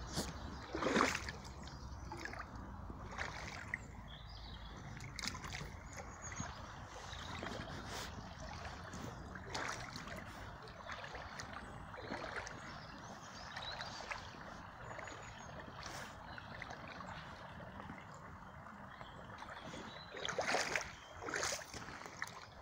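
Wellington boots wading through a shallow, fast-running stream: steady rushing water with splashes as the feet move through it, and a few louder splashes near the end.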